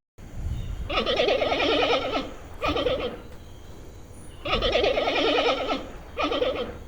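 Panda bleating: a long, wavering call and a short one, then the same pair again.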